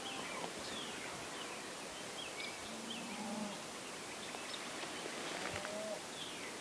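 Songbirds chirping in woodland: many short, high calls throughout. About halfway through comes one faint, low call lasting under a second.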